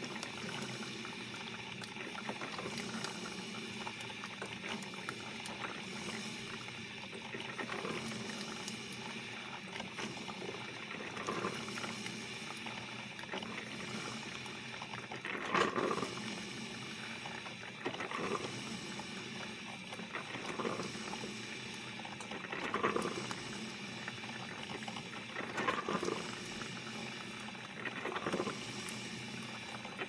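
Coffee maker brewing: a steady watery hiss, with louder surges every two to three seconds in the second half.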